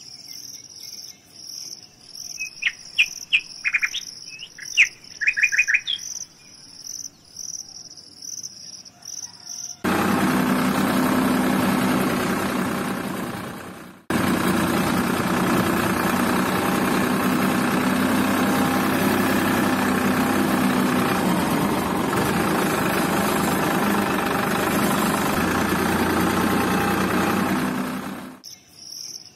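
Crickets or other insects chirping in a steady, even pulse, with a few quick bird chirps. About ten seconds in, a loud small motor starts running with a steady hum, dips briefly once, and then runs on until it stops near the end, when the chirping returns.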